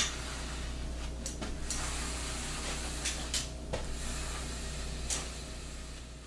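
An aluminium folding walker being pushed and set down step by step, giving a few scattered light knocks and clicks over a steady low room hum. The sound fades out near the end.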